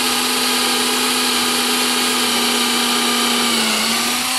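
Cordless drill driving a screw into a pine board, its motor running with a steady whine. The pitch sags for a moment under load near the end, then the drill stops suddenly.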